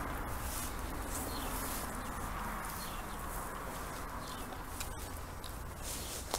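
Steady outdoor background noise with light rustling and a few small clicks, typical of footsteps over debris while walking.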